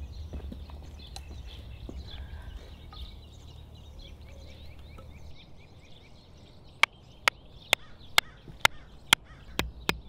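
A hammer driving a wooden stake into the soil, with sharp, even blows about two a second starting a little past halfway. Before that, birds chirp faintly.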